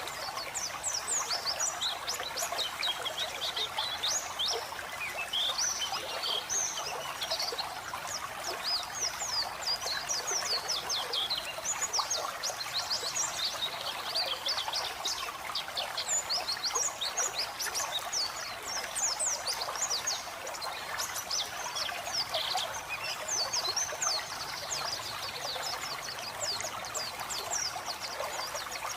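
White-eye (pleci) song: fast runs of high, thin twittering chirps, one after another, over a steady bed of running, trickling water.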